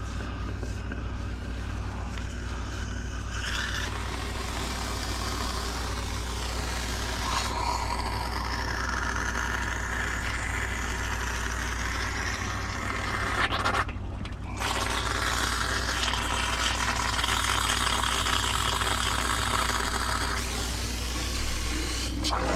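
Pipe-thawing machine running with a steady low hum. A rushing, hissing noise of water and spray joins a few seconds in, cuts out briefly about two-thirds of the way through, then returns a little louder.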